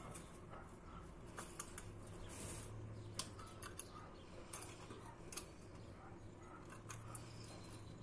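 Scattered sharp, snipping clicks from budgerigars pecking and climbing about a wire cage.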